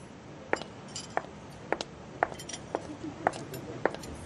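Footsteps clicking on a hard floor, about seven even steps at a walking pace of roughly two a second.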